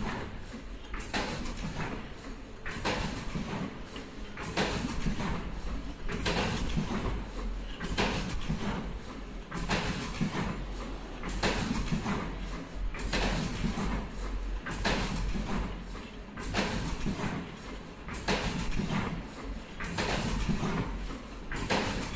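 Richpeace flat surgical mask production line running, with a rhythmic swish from its machinery repeating about every second and a half over a faint steady high whine and a low hum.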